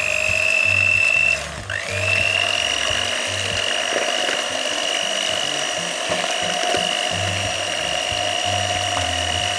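Electric hand mixer with twin wire beaters running steadily in thin pancake batter, a high motor whine. About a second and a half in it cuts out briefly and starts again, its whine rising back up to speed.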